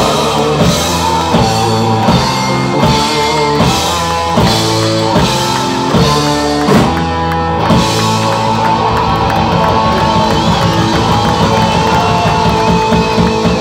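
Live heavy rock band playing an instrumental passage on electric guitar, bass and drum kit, no vocals. The chords change in short hits for the first half, then settle into a steadier, driving section about halfway through.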